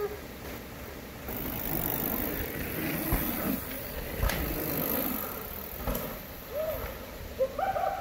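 Mountain bike rolling down a dirt trail: a steady rush of tyre and wind noise, with two sharp knocks from the bike over bumps a little after three and four seconds in.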